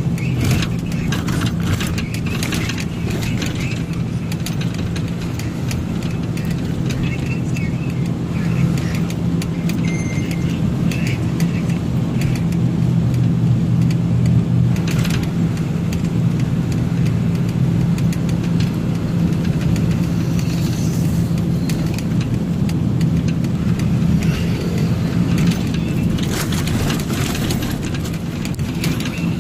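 A truck's engine running steadily while driving, heard from inside the cab, with road noise and occasional rattles.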